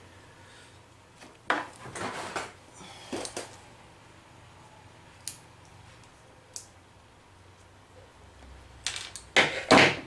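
Hands handling small objects and packaging on a workbench: a few short rustles and scrapes, two sharp clicks in the middle, and a louder rustle near the end.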